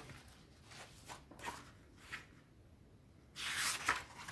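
Paper sounds from a book's pages being handled and turned: a few soft ticks, then a longer rustle about three and a half seconds in.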